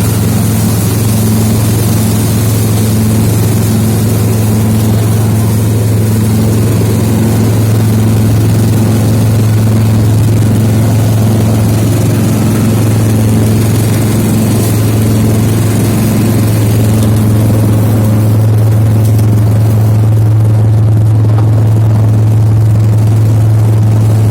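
Rice paddy winnowing blower machine running steadily on a test run, a loud, even low hum that does not change.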